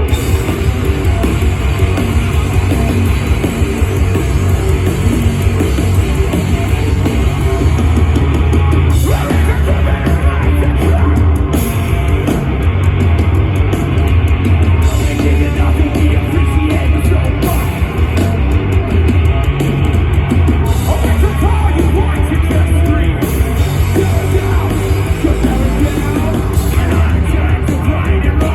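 Hardcore punk band playing live and loud: distorted electric guitars, bass and drums, with yelled vocals.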